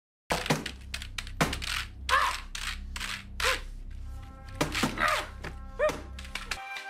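A computer being struck and smashed at a desk: a rapid, irregular series of hard thuds and cracks over film music.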